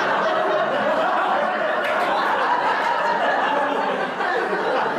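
A roomful of people laughing together in response to a joke, with many voices overlapping.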